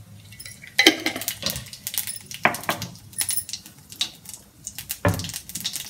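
Cumin seeds crackling and spluttering in hot oil as a jeera tadka (tempering), beginning about a second in with a sharp burst of pops and going on as irregular crackles.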